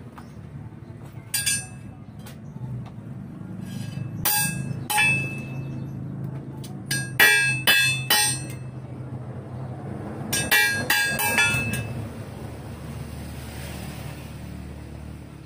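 Hammer strikes on steel, each with a sharp metallic ring: one, then two, then three, then a quick run of several about eleven seconds in. A low steady hum runs underneath.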